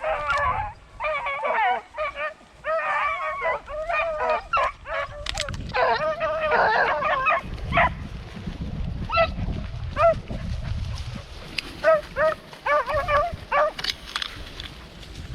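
Pack of beagle hounds baying and yipping. Several voices overlap in dense runs for the first seven seconds or so, then thin out to scattered single yelps.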